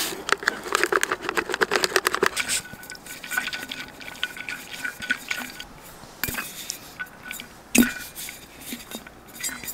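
Drink powder tipped from a paper packet into an insulated stainless steel tumbler, then the capped tumbler shaken, its contents sloshing with quick clinks and knocks. The clicks come thick and fast for the first couple of seconds and grow sparser, with one sharper knock about eight seconds in.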